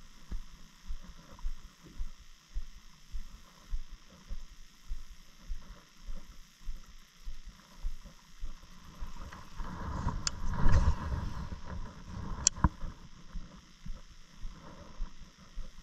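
Fishing reel being cranked on a retrieve, giving a regular low thump about twice a second. About ten seconds in there is a louder rush of noise, with sharp clicks just after ten and twelve seconds in.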